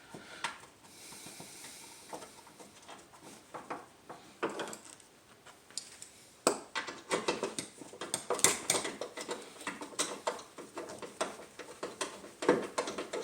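Hand ratchet clicking in quick, irregular strokes as the hood latch bolts are run back in, left loose for now. A few scattered handling clicks come first, and the ratcheting gets busy about halfway through.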